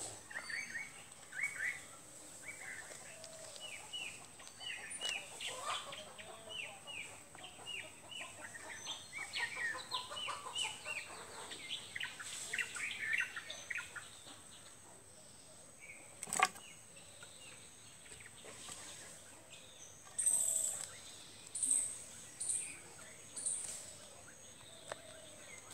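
Small birds chirping in a busy run of short, quick calls through the first half, then quieter. A single sharp click comes about 16 seconds in, and four short high-pitched bursts come near the end, over a faint steady high whine.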